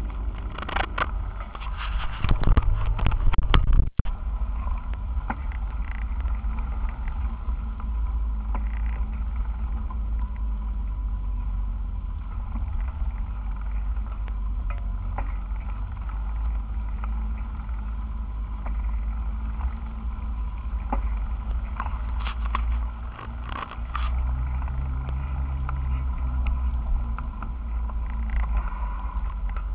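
Deep rumble of wind and road vibration on a bicycle's handlebar-mounted camera during the ride. Sharp rattles and knocks come over the first few seconds and again a few times about three quarters of the way in.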